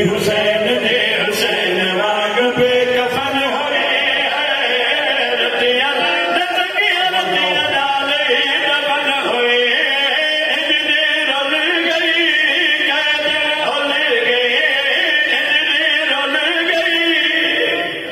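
Group of men chanting a devotional qasida for Imam Hussain together into microphones, several male voices layered in a steady chorus.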